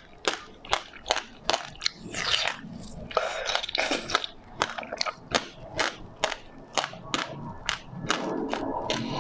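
Close-up chewing of a soft bun topped with passion fruit pulp, the seeds crunching in sharp, even clicks about two to three a second. A longer, noisier stretch comes about two to four seconds in as she bites into the bun again.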